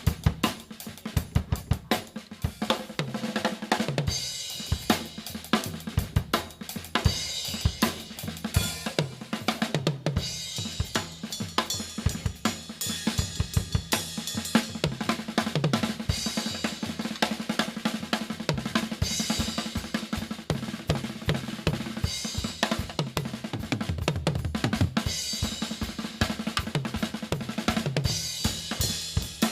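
Drum kit played live at a fast pace, with snare, bass drum, hi-hat and cymbals, and many quick strikes each second.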